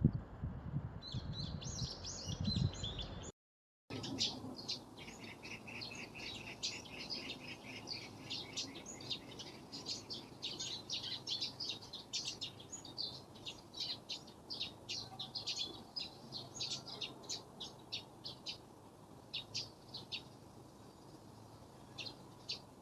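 Birds chirping, many short rapid chirps that thin out near the end. For the first three seconds a low rumble sits under them, then the sound cuts out for about half a second.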